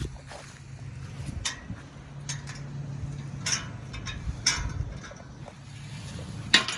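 Footsteps crunching on outdoor ground, a step every half second to a second, over a steady low hum.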